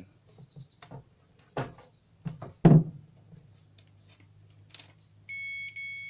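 Clicks and knocks of multimeter test leads being handled, the loudest a sharp knock near the middle. Near the end a Greenlee DM-20 digital multimeter's continuity buzzer gives one steady high beep lasting under a second, showing an unbroken path through the microwave's fuse.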